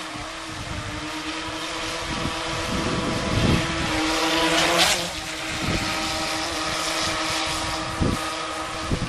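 Electric motor of a 23-inch RC racing speed boat whining steadily as the boat runs across the water. The hiss of water swells to a peak about five seconds in. A few short low thumps come through.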